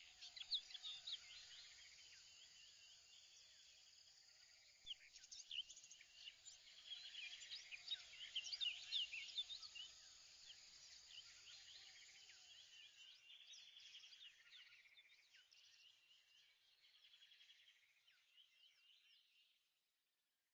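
Faint chorus of small birds chirping in many quick, high calls, with some pulsing trills among them, fading away shortly before the end.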